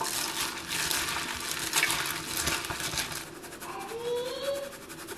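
A plastic-gloved hand squeezing and mixing chopped onion and spinach with gram flour and a little water in a steel bowl: a wet, crackling rustle that eases off after about three and a half seconds.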